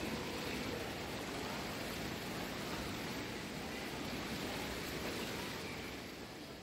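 Indoor swimming pool ambience: a steady rushing hiss of moving water as a swimmer glides on her back. It fades out near the end.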